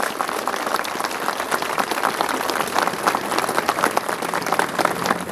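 Crowd applauding: many hands clapping steadily at an even level as the bust is unveiled.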